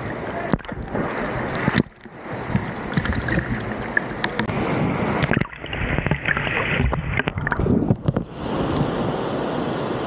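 Water splashing and sloshing close around a camera at the surface of a waterfall pool, muffled in stretches where it dips underwater. Near the end comes the steady rush of the waterfall pouring into the pool.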